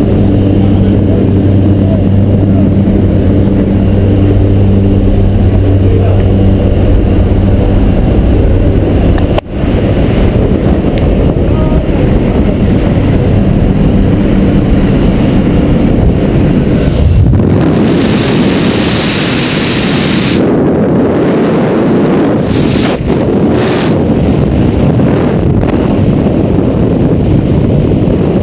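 Twin Otter's turboprop engines droning steadily inside the cabin. About nine seconds in the sound drops out for an instant, then turns to a rushing wind roar at the open door. From about seventeen seconds the wind noise grows brighter and stronger as the skydiver exits into freefall.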